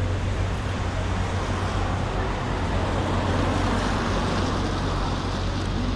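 Street traffic: a steady low engine hum with tyre and road noise, swelling as a vehicle passes about three to four seconds in.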